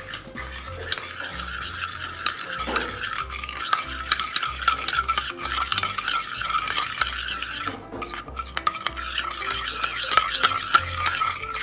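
Steel spoon stirring and scraping around a small stainless-steel bowl, dissolving instant coffee in milk and warm water. Rapid, continuous clinking and scraping, with a brief pause about eight seconds in.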